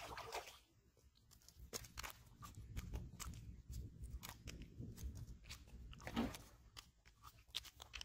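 A hooked carp splashing at the surface, then flopping on dry, cracked mud: irregular crunching and slapping, loudest a little after six seconds in.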